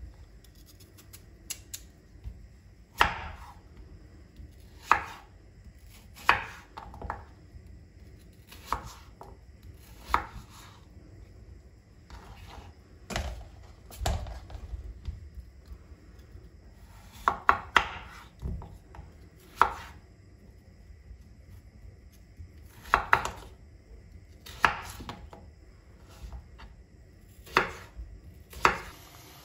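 Chef's knife cutting peeled raw potatoes into wedges on a wooden cutting board: sharp knocks of the blade meeting the board every second or two, sometimes in quick runs of two to four.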